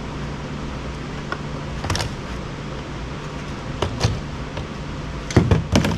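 Plastic parts of an iRobot Roomba being handled during teardown: a few scattered clicks and knocks, the loudest two near the end, over a steady low hum.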